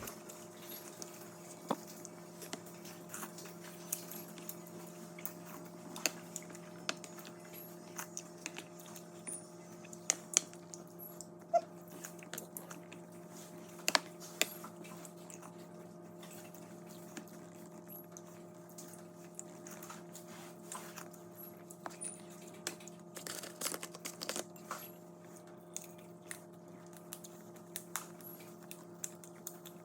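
A person chewing and biting into vegetables close to the microphone: irregular sharp crunches and mouth clicks, loudest in clusters around the middle and later on, over a steady low electrical hum.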